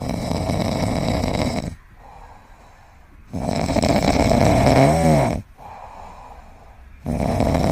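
A pet snoring loudly in slow, regular breaths: three long rasping snores about three and a half seconds apart, with quieter breaths between them. The second snore ends in a wavering whistle.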